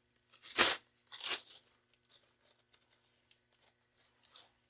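A plastic bag with a handful of steel transmission bolts in it being handled: a loud crinkling rustle about half a second in, a shorter one just after, then a few faint ticks.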